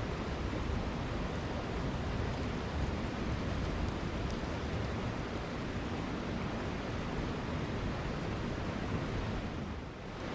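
Mountain stream water rushing, a steady hiss of flowing water that dips briefly near the end.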